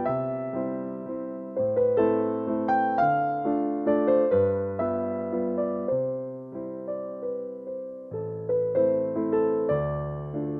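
Background music: a gentle electric piano melody with notes struck and fading.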